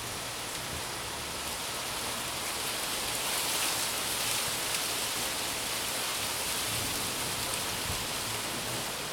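Heavy thunderstorm rain falling steadily, a dense even hiss that swells slightly a few seconds in.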